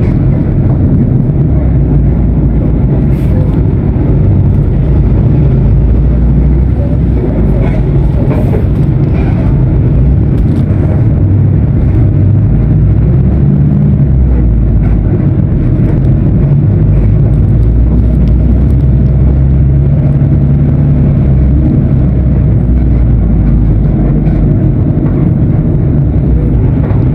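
Mercedes-Benz OF-1519 BlueTec 5 bus's diesel engine running, a loud, steady low drone whose note shifts a few times.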